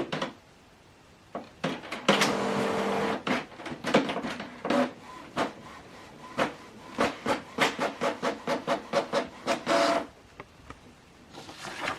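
Canon PIXMA TS7750i inkjet printer printing a test page: a steady motor whir about two seconds in, then a long run of quick clicks and short mechanical strokes that stops about two seconds before the end.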